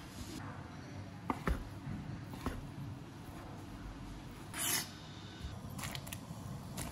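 A kitchen knife clicking and scraping on a bamboo cutting board while fresh sausage meat is skinned and chopped, with a few sharp taps and one louder scrape about halfway through, over a steady low rumble.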